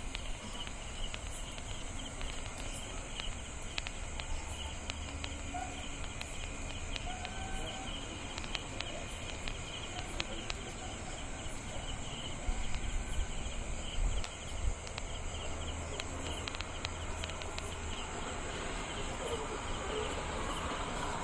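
Crickets and other night insects chirping steadily in a high, even buzz. A few low thumps come about two-thirds of the way through.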